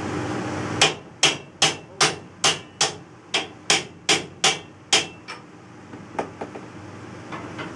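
Hammer blows on the metal wall of a food truck: eleven sharp strikes in about four seconds, then a few lighter taps.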